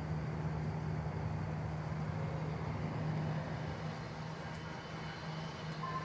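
Steady outdoor vehicle noise: a low rumble with a constant hum. Right at the end, a steady chord of electronic tones starts from the siren's loudspeakers.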